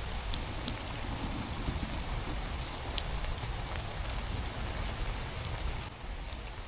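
Steady rain falling in a forest, an even hiss with a few sharp drip ticks scattered through it.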